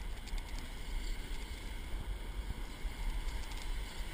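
Wind buffeting the microphone in a steady low rumble, over the continuous wash of breaking surf and foam.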